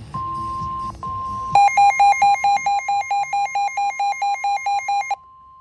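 NOAA Weather Radio's steady 1050 Hz warning alarm tone, which drops out briefly about a second in. Then a loud pulsing electronic alarm beeps about four times a second for three and a half seconds and cuts off, leaving the warning tone faint underneath.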